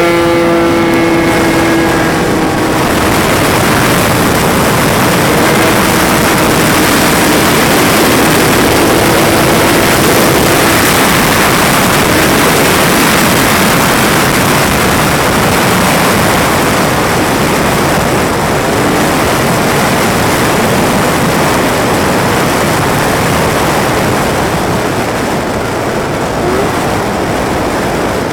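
Piaggio Typhoon scooter's two-stroke engine with a Malossi 172 cc kit, running at speed with a steady engine note. Wind rushing over the helmet-mounted microphone covers much of it, and after about 11 seconds the engine note is lost in that noise.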